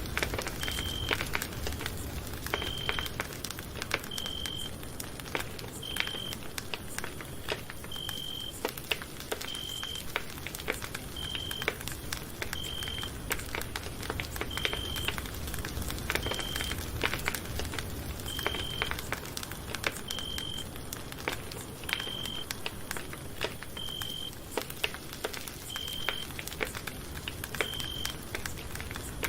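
Campfire crackling, with irregular snaps and pops. A short, high beep repeats about every two seconds.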